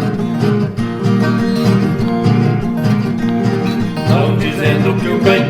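Viola caipira and acoustic guitar playing a caipira tune, the viola's bright plucked lines over the guitar's strummed backing. Singing comes in near the end.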